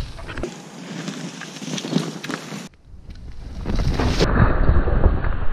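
Wind buffeting the microphone of a camera mounted on a mountain bike or rider, with the bike's tyres rolling over leaf litter and dirt and scattered rattles and knocks from the bike. The sound changes abruptly where the footage is cut: it drops away almost to nothing for a moment just under three seconds in, then comes back.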